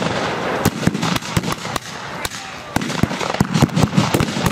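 Scattered blank gunfire: a dozen or more sharp shots at uneven intervals, some close together.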